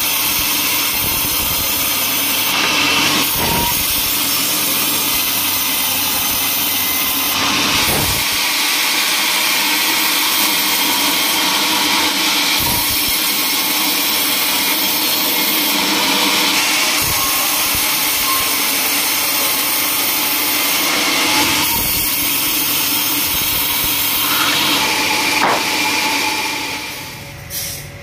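Band sawmill blade cutting lengthwise through a teak log: a loud, steady hiss of the band in the wood over the running machine. It fades away about a second before the end.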